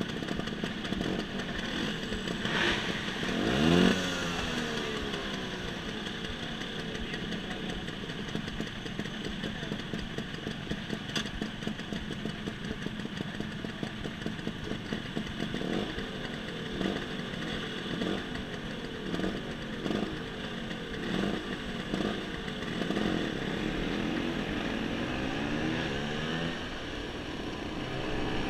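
Motor scooter engines idling at a stop, with a rev about four seconds in and a string of short throttle blips in the middle; near the end the engines rise in pitch as the scooters pull away.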